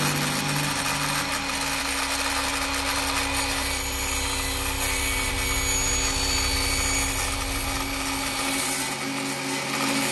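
Brushless miter saw running and cutting through a thin L-shaped strip: a steady motor hum under the even hiss of the blade in the material.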